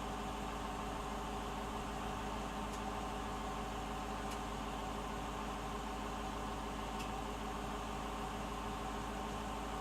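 2018 Dodge Durango R/T's 5.7-litre HEMI V8 idling steadily through its stock exhaust, with a few faint ticks.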